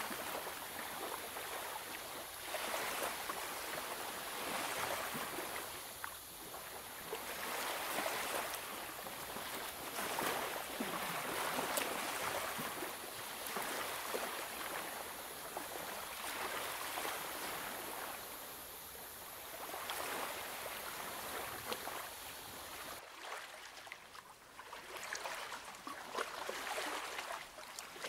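Coloured pencil scratching on paper in repeated strokes, the scratching swelling and easing every second or two, with a brief quieter stretch near the end.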